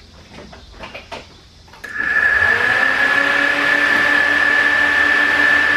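A few light clicks and knocks, then about two seconds in a Nissan SR20DET turbocharged four-cylinder starts and runs steadily with a strong high whine over the engine note.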